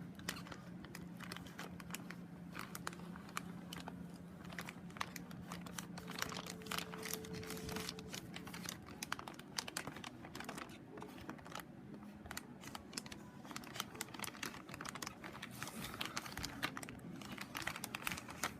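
Plastic packaging bag crinkling and rustling as it is handled and opened, with many small irregular clicks. A steady low hum sits underneath through the first half.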